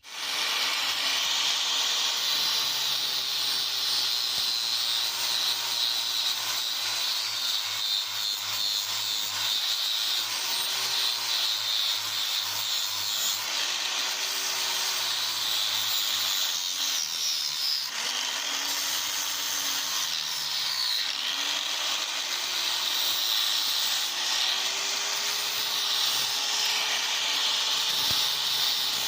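Power tool running continuously with a steady high hiss. Its motor pitch dips and recovers several times as it is pressed into the work.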